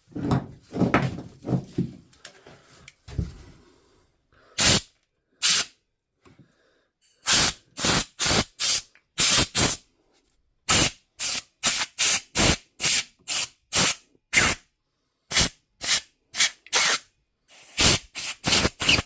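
Short hissing blasts of cleaning spray, about twenty in quick succession, cleaning out the armature of a cordless SDS hammer drill's motor. A few seconds of handling and rubbing noises come first.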